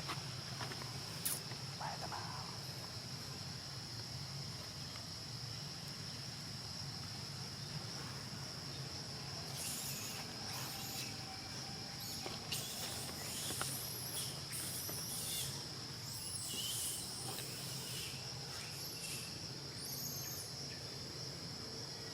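Steady high-pitched insect drone, like crickets, over a low hum, with scattered short high chirps about halfway through and again near the end.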